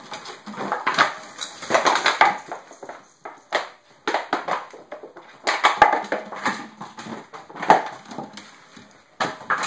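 A dog sniffing and scrabbling about on a hardwood floor: a run of irregular short snuffles and knocks.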